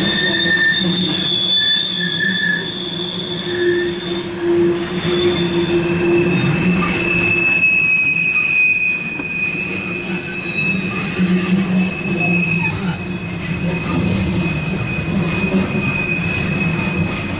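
Loaded coal cars of a CSX freight train rolling past close by, the wheels squealing in steady high-pitched tones over the low rumble of the cars. The squeal shifts pitch about a third of the way in and holds nearly to the end, typical of wheel flanges grinding as the cars take the curve onto the west leg.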